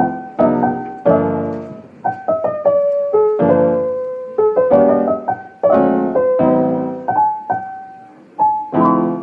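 Piano music: chords and single melody notes struck and left to fade, one or two strikes a second.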